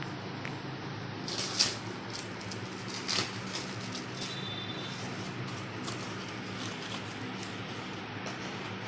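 A cardboard product box being handled and opened: scrapes, taps and rustles, the loudest about one and a half seconds in and again around three seconds in, with smaller ones after, over a steady low hum.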